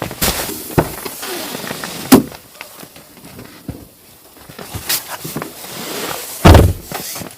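Rustling and handling noises with several sharp knocks, the loudest about two seconds in, and a heavy thump near the end.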